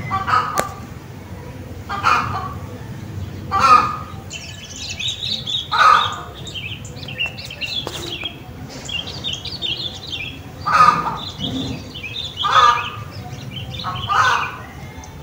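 Birds calling: one call repeats every couple of seconds, with a longer gap about halfway through, while smaller birds twitter at a higher pitch through the middle.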